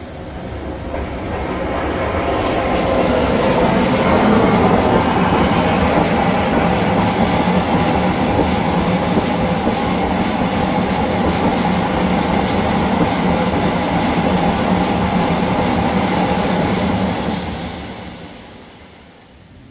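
Steam boiler blowing down: boiler water and steam rushing out under pressure through the blowdown valve and pipe in a loud, steady rush. It builds over the first few seconds, holds, and dies away near the end.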